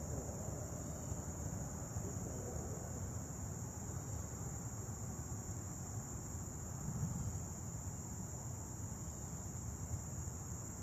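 Steady high-pitched insect chorus with a low rumble underneath.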